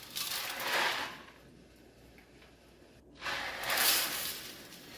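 Coarse dishwasher salt being poured through a funnel into the dishwasher's salt reservoir: two hissing pours, one at the start and another from about three seconds in, with a quiet pause between.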